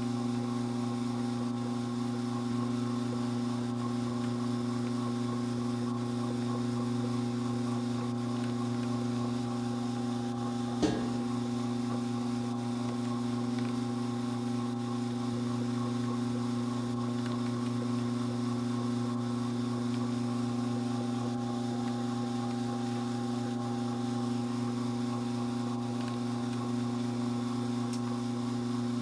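Strauch Mad Batt'r electric drum carder running steadily with an even motor hum while carding dog hair. A single sharp click about eleven seconds in.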